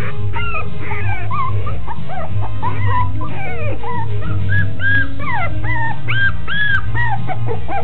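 Chinese crested puppies whimpering and squealing in a rapid string of short, high calls that rise and fall in pitch, over background music.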